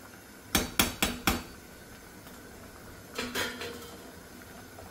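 Perforated steel skimmer spoon tapped four times in quick succession against a metal kadhai, then a softer clatter of metal on metal about three seconds in as the spoon is set down on the steel pan lid.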